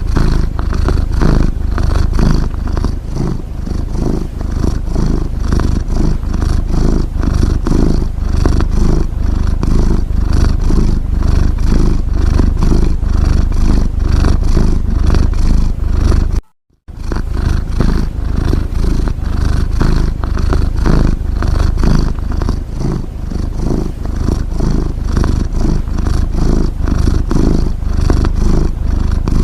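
A domestic cat's rapid, rattling rumble in its breathing, steady and continuous, rising and falling slightly in loudness. It breaks off for a split second a little past halfway, then carries on.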